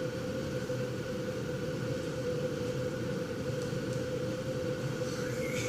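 Steady machine hum: a constant mid-pitched tone over a low hiss.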